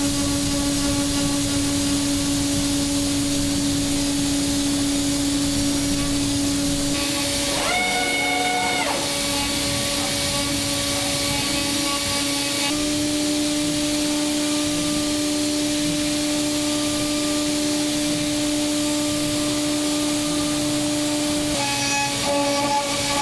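CNC milling machine spindle running steadily while cutting billet aluminium, a constant whine over a steady hiss. A brief higher-pitched whine about 8 s in, and the pitch steps up slightly about 13 s in and back down about 21 s in.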